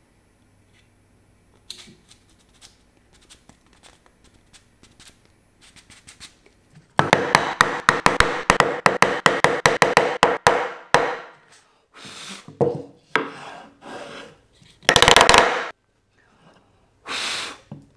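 Box-joint fingers of two pine boards being pushed together, wood rubbing on wood in a rapid run of ticks for about four seconds, then several separate scraping strokes, the loudest a little before the end. The fingers fit tightly and need a little more clearance.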